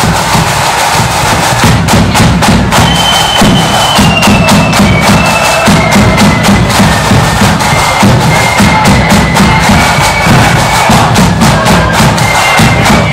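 Marching flute band playing a tune: flutes carry a high melody over snare drums and a heavy bass drum beat.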